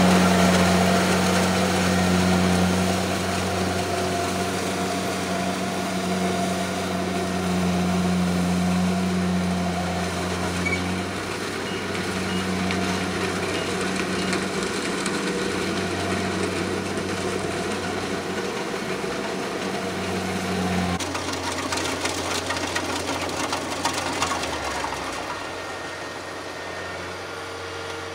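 Combine harvester's engine running with a steady hum. About twenty seconds in the hum changes and the sound becomes rougher and noisier.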